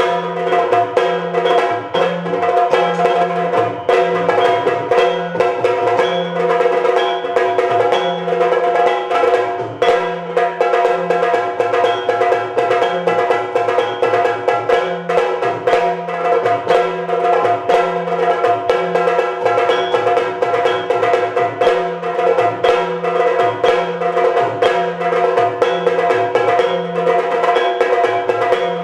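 Yakshagana dance music: fast, dense drumming, with the chende among the drums, over a steady held drone.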